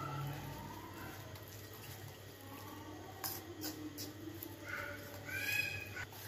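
A spoon stirring gram-flour batter in a bowl, with a couple of clinks against the bowl about three seconds in. High-pitched calls sound in the background, the loudest about five seconds in.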